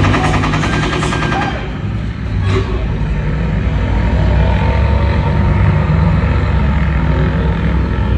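Twin-propeller prop plane's engines running with a steady low drone that builds from about three seconds in as the propellers spin. Before that comes a rapid rattling burst lasting about a second and a half.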